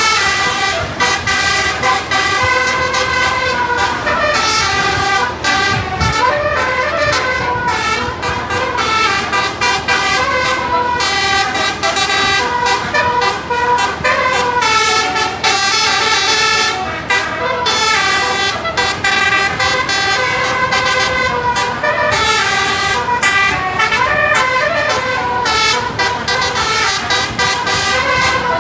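Eighteen-note 'full telolet' bus air horn set playing tune after tune, several horn tones sounding together and stepping up and down in pitch.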